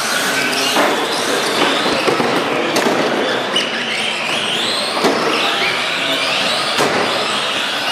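Several radio-controlled Euro race trucks running on a carpet track, their electric motors whining up and down in pitch as they speed up and brake, with a few sharp knocks scattered through.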